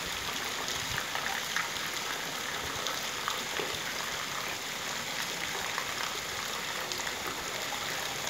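Rain falling steadily on a wet street: a dense, even hiss with many small drop splashes.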